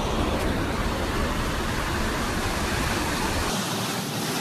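Steady rushing noise of wind buffeting the phone's microphone over surf on a sandy beach; the low rumble of the wind drops away about three and a half seconds in.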